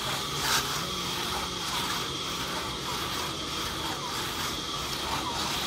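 Hand-made two-man crosscut saw rasping through a log, pulled back and forth in a steady rhythm of strokes, a little under two a second.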